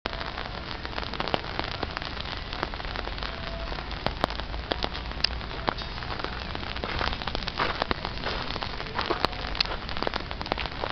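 Rain falling steadily, with many sharp ticks of drops landing close by.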